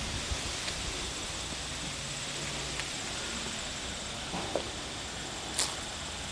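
Open-air ambience: a steady faint hiss with some low rumble, and one sharp click about five and a half seconds in.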